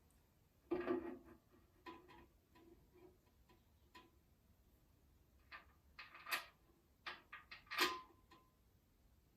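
Irregular sharp metallic clicks and clinks, some with a short ring, from tools and small parts being handled while assembling a motorcycle. The loudest clinks come about a second in and near the end.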